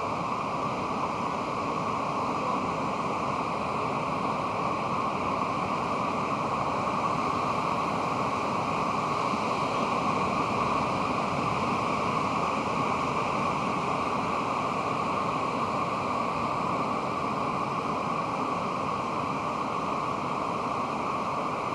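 Pacific Ocean surf: a steady wash of breaking waves, swelling slightly about halfway through.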